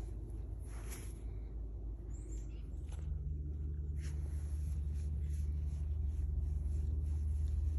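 Domestic cat purring while being stroked: a steady low purr that grows louder about three seconds in.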